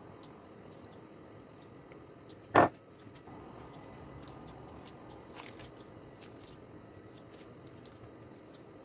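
Faint rustling of hands laying a thin sheet of rolled dough into a baking tray, with one short, loud knock about two and a half seconds in.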